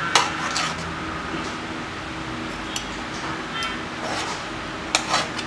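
Knife and fork working through soft, slow-cooked mutton leg on a rice platter, with a few light clicks and clinks of the cutlery against the dish over a steady room hum.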